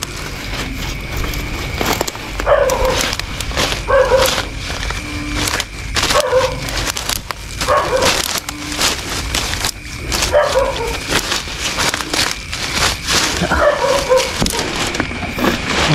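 Dog barking repeatedly, a short bark every second or two, each one dropping in pitch, over a steady high tone and scattered rustling clicks.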